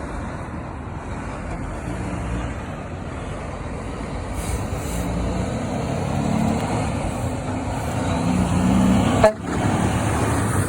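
Freightliner semi truck approaching and passing, its engine and road noise growing louder, with low horn tones sounding briefly near the end. The sound cuts off abruptly about nine seconds in.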